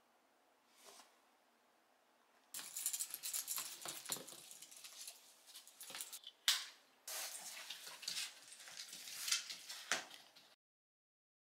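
A dog harness's metal clips and buckles clinking and rattling, with rustling, as it is handled over a small dog, in uneven bursts from about two and a half seconds in; the sound cuts off suddenly near the end.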